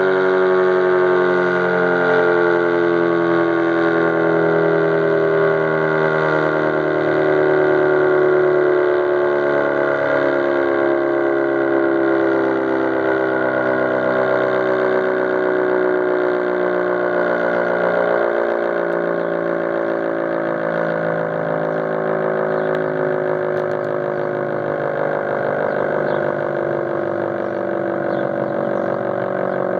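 Federal Signal 500-DH-TT outdoor warning siren winding down after its alert signal: several tones together falling slowly in pitch as the rotor coasts, gradually getting quieter.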